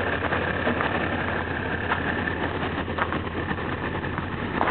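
Diesel railway engine idling with a steady low hum, a thin high whine over the first couple of seconds and a few faint clicks.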